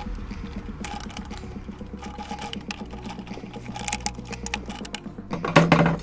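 Screwdriver turning screws into a plastic washing-machine door frame: a steady run of small, fast clicks, with a louder clatter near the end.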